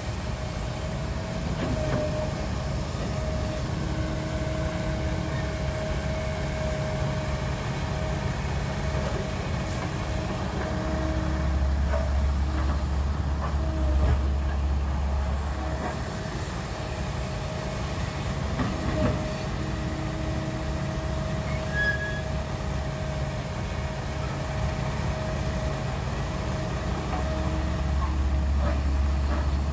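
Cat hydraulic excavator's diesel engine running with a steady hydraulic whine, the engine note deepening and swelling in spells as it digs and swings loads of dirt and rock into a dump truck bed. A few knocks mark material landing.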